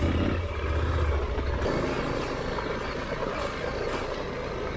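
KTM dual-sport motorcycle engine running while riding a dirt trail. A deep low rumble drops away about a second and a half in, and the engine keeps running more quietly after that.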